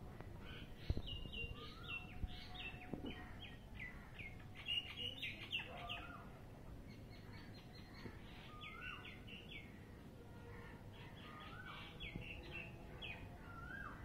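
Common myna calling: a rapid run of short chirping notes mixed with a rising-then-falling whistle that comes back every few seconds. A thump about a second in.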